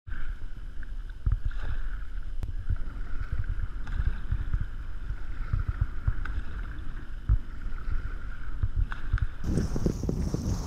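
Wind buffeting an action-camera microphone as a kayak is paddled along a river, with paddle strokes in the water. A faint steady high drone runs underneath, and about nine seconds in the wind and water noise grow louder and hissier.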